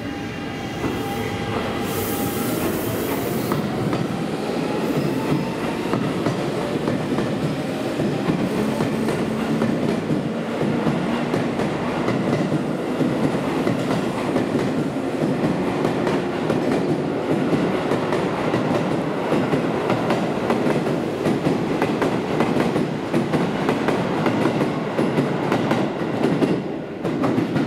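Seibu 6000 series electric train pulling away, its Hitachi GTO-VVVF inverter giving a rising whine in the first few seconds, with a short hiss about two seconds in. Then a steady clatter of wheels over the rail joints as the cars pass.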